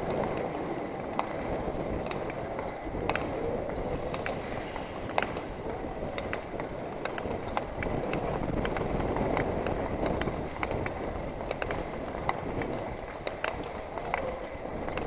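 Speed skates on ice at speed: a steady rush of air over the moving microphone, with many sharp irregular clicks and scrapes of the blades striking and pushing off the ice.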